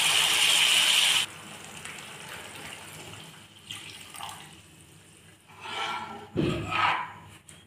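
Liquid poured into a hot pan of curry masala, a loud hiss that stops abruptly just over a second in. After that the gravy simmers quietly, and near the end a spatula stirs and scrapes the pan in a few short strokes.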